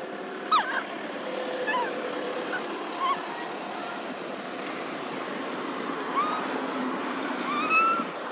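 Baby macaque giving short, high, arched coo calls: a few brief ones in the first three seconds and two clearer ones about six and seven and a half seconds in, over a steady background hiss.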